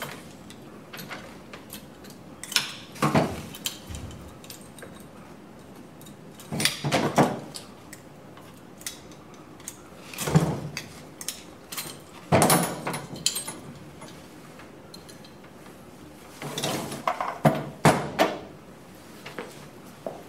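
Metal parts of an oil burner's nozzle assembly clinking and knocking against the burner body as they are handled. The sound comes in about five short bursts of clatter.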